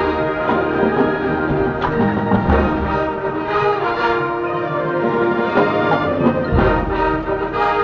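High school marching band playing sustained chords, brass to the fore, with deep low notes about two and a half seconds in and again near the end.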